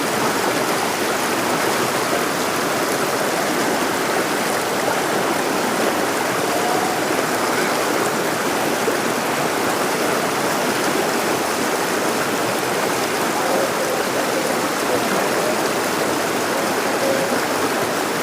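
Rushing water of a river and waterfall, a steady, even rush.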